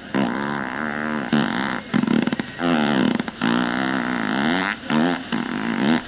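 Electronic fart noises from The Pooter fart machine: a run of long, buzzy farts one after another, each bending in pitch, with short breaks between them.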